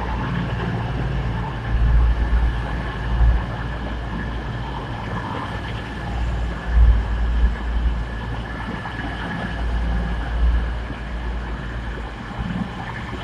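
East Midlands Railway Class 222 Meridian diesel multiple unit pulling into the platform. It makes a steady rumble of engines and wheels with a constant high hum over it, and the low rumble swells several times as the coaches pass.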